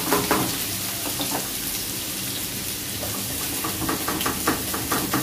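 Sliced onion and dried red chillies frying in hot oil in a pan: a steady sizzle with scattered crackles and pops.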